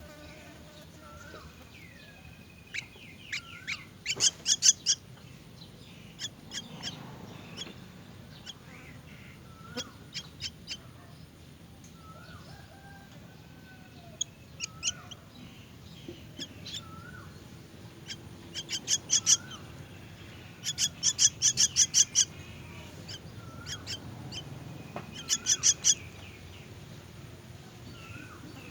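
Common myna nestlings begging in the nest: several bursts of rapid, harsh calls, with short rising chirps between them.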